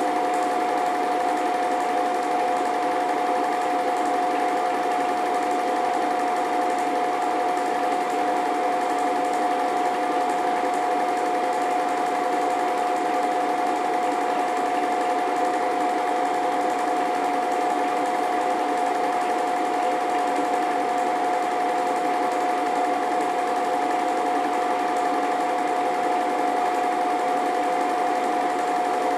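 Film projector running steadily: its motor and film mechanism give a constant mechanical whirr with one high, unchanging hum.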